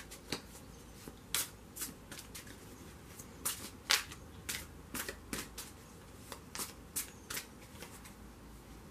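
A deck of cards being shuffled by hand: a string of short, sharp card clicks and slaps at uneven intervals.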